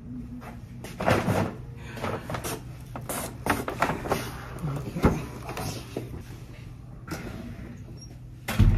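Rustling and clacking of a paper shopping bag and clothes on plastic hangers, with a sharp click about five seconds in, then a wooden fitting-room door shutting with a heavy thump near the end.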